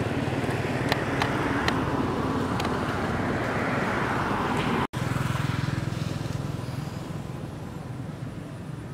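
Steady outdoor rumble with an engine-like low drone and a few light clicks in the first three seconds; it drops out for an instant about five seconds in, then comes back and slowly fades.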